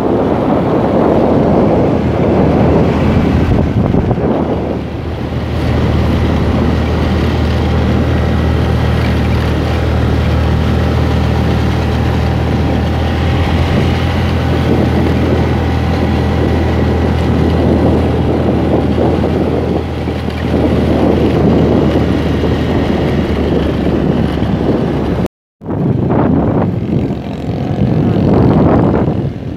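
Motorcycle engine running steadily under load on a steep uphill road, with heavy wind rumble on the microphone. The sound cuts out for a split second near the end.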